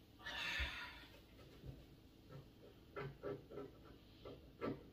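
Wet wipe rubbed over a stainless-steel dishwasher door, faint: a soft swish of wiping in the first second, then a quick run of short rubbing strokes with a slight squeak in the last two seconds as a spot is scrubbed and scraped off.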